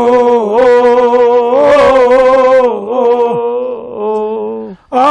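A single man's voice chanting a Kashmiri marsiya, an elegy for Imam Husayn, unaccompanied. He draws out long held notes with slow wavering ornaments and pauses briefly for breath near the end.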